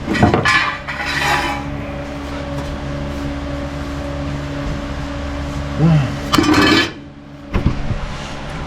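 A steady mechanical hum with metal clanking, as tools and sheet-metal pieces are handled near the start and again about six and a half seconds in.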